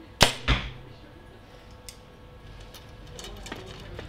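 PSE Perform X target compound bow being shot: a sharp crack as the string is released, then a duller thump about a third of a second later. Faint clicks and handling noise follow.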